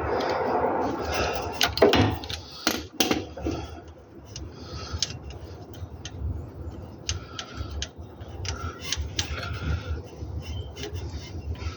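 Metal hand tools clinking and scraping, busy for the first few seconds, then scattered sharp clicks over a low steady rumble.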